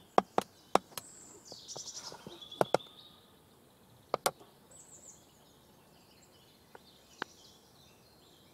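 Small birds chirping in woodland, with a scatter of sharp clicks and taps close by, the loudest in the first second and a few more later.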